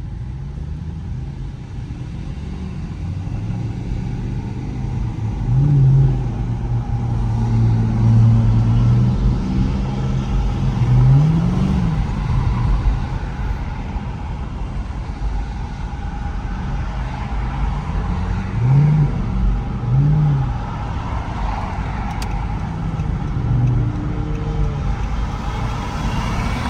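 2014 Dodge Charger R/T's 5.7-litre HEMI V8 running under way, a steady low engine note broken by about five brief flares in revs that rise and drop back quickly as the car is shifted down hard.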